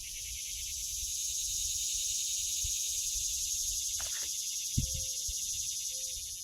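An insect calling: a loud, steady, high-pitched buzz with a fine rapid pulse that cuts off abruptly at the end. A couple of faint low thumps come about five seconds in.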